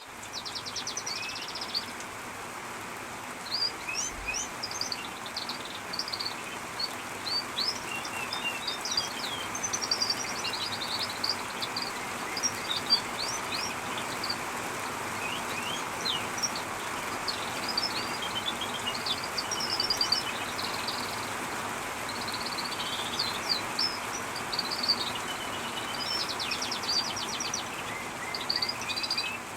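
Canaries singing almost without pause, a long warbling song full of fast trills and rolls, over the steady hiss of falling rain.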